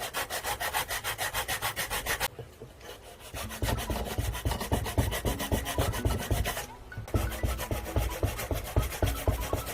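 Hand sanding: a piece of wood rubbed quickly back and forth over sandpaper taped flat to a board, in three rhythmic bouts with short pauses about two and six and a half seconds in.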